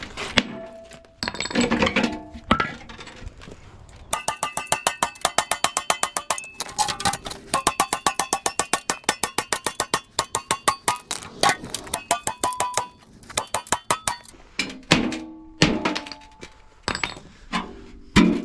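Metal parts of a washing machine being handled during dismantling: a few knocks, then a rapid run of metallic clicks and clinks with ringing tones for about ten seconds, then more scattered knocks.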